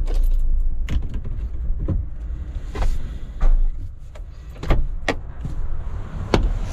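Clicks and knocks of controls in a Ford Transit van's cab, over a low engine rumble that fades about three and a half seconds in.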